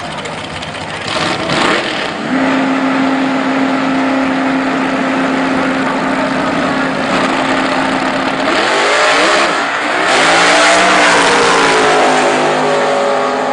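Doorslammer drag-racing engines at the starting line, held at a steady high pitch for several seconds. About eight seconds in they launch and rise in pitch through their gears, loudest a couple of seconds later, then fade slightly as the cars head down the track.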